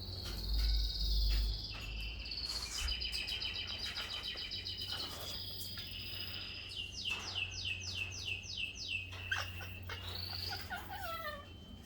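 Canaries singing: fast trilled phrases of rapidly repeated high notes, then a run of quick downward-sweeping whistles, about three a second, and scattered chirps. A low rumble sounds about a second in.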